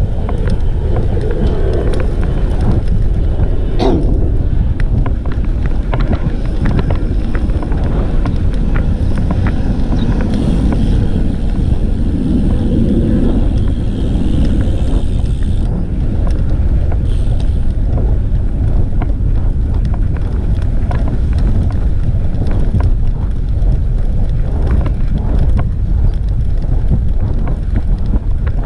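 Wind buffeting the microphone of an action camera on a moving road bike: a loud, steady, low rumble.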